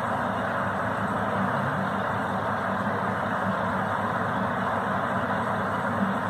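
Steady background noise, an even rumble and hiss with no distinct events.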